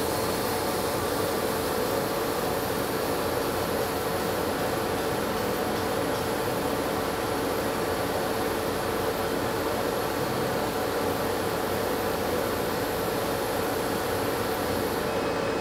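Laser cutter running as it cuts parts: a steady, unchanging whir with a constant hum.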